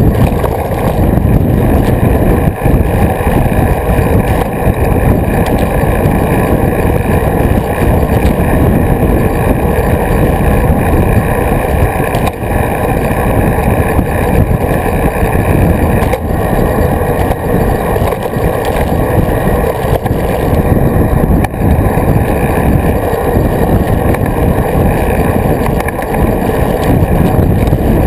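Steady, loud wind rumble on the microphone of a camera mounted on a moving road bicycle, buffeting with the rider's speed.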